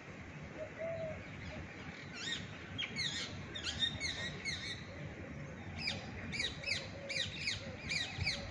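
A small bird calling: fast runs of sharp, high, downward-sweeping chirps, about three a second, in two bouts. The second bout starts about six seconds in.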